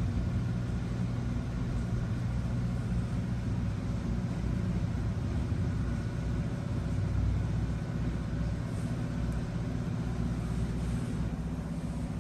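Steady low background rumble with a faint hum, swelling slightly about midway.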